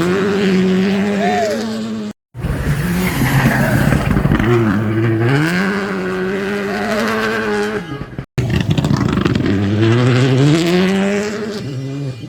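Rally cars' turbocharged four-cylinder engines revving hard in three short cuts, pitch dropping and climbing again and again through the gear changes.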